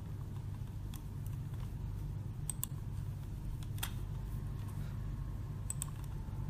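A few sharp computer mouse clicks, two of them as quick double clicks, over a steady low electrical hum.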